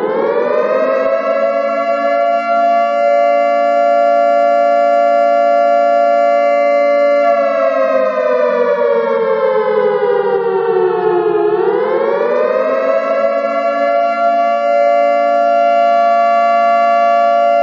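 Air-raid siren wailing. It finishes winding up to a steady pitch in the first second and holds it. From about 7 seconds in it slowly sinks, then about 11 seconds in it climbs back up and holds steady again.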